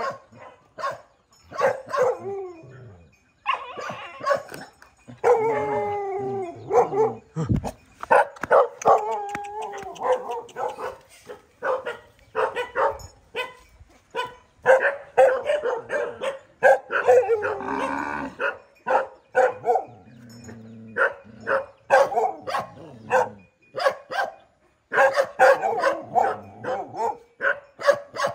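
Several dogs barking and yelping in rapid short bursts, with longer wavering whining cries in among them about a third of the way in.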